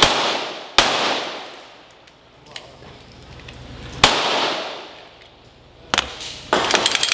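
Four pistol shots, spaced unevenly (two close together at the start, then one about 4 s in and one about 6 s in), each ringing out in a long echo under the metal roof of a covered range. Near the end comes a quick run of sharp clicks.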